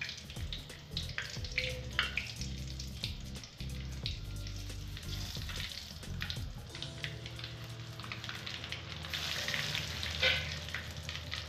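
Whole spices (bay leaves, dried red chillies and nigella seeds) sizzling in hot mustard oil in an aluminium kadai, with many small pops as the tempering (phoron) fries. The sizzle grows louder about nine seconds in.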